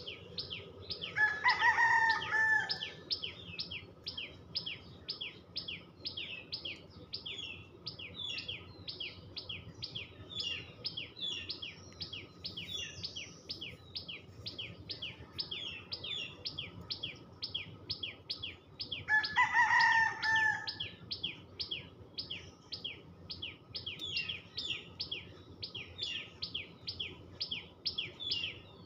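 Common tailorbird calling a fast, unbroken series of sharp high chirps, about three to four a second. Twice, about a second in and again around twenty seconds in, a rooster crows louder over it.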